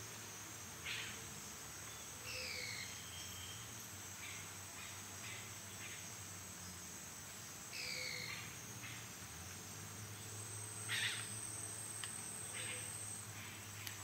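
Amazon rainforest in the daytime: a steady, high insect drone with bird calls over it. A descending whistle, sung as two notes at once, comes twice about five seconds apart, and short sharp calls break in now and then, the loudest one late on.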